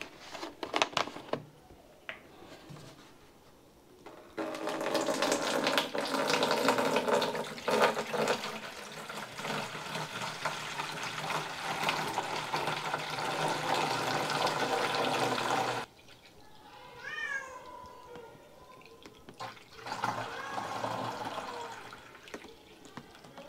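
Murky water poured through a cloth handkerchief to strain out visible particles: a steady splashing pour of about eleven seconds that stops abruptly. A few sharp clicks come before it, and a short wavering high-pitched sound follows it.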